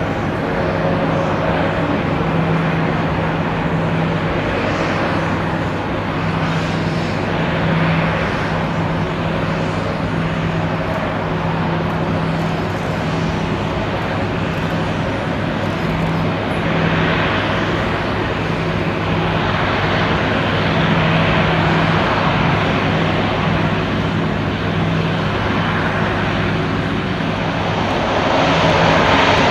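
Antonov An-70's four Progress D-27 propfan engines, with their contra-rotating propfans, running steadily as the aircraft taxis: a continuous drone with a strong low hum. It grows louder near the end.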